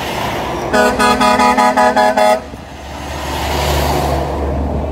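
A truck's air horn sounding a rapid string of short toots for about a second and a half. Then another semi-trailer truck passes close, the rush of its engine and tyres swelling and fading.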